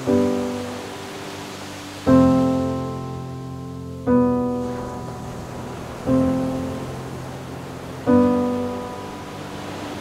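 Slow, relaxing solo piano music: a chord struck about every two seconds and left to ring and fade. Under it is a steady soft wash of ocean waves.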